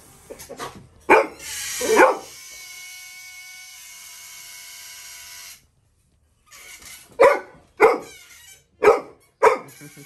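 Labrador retriever puppy barking twice, while air hisses and squeals out through a stretched balloon neck for about four seconds; after a short pause the puppy barks four more times.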